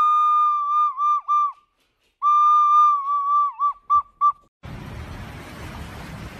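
A white plastic soprano recorder blown by a golden retriever, sounding one high note that is held, wavers and breaks into short toots, stops briefly, then comes back held and ends in a few quick toots. After a cut near the end, a steady hiss of background noise.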